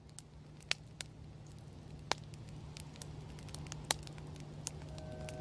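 Low steady hum slowly fading in, with scattered sharp crackles and pops like the surface noise of an old recording. Just before the end a bell-like ringing tone of several steady pitches begins.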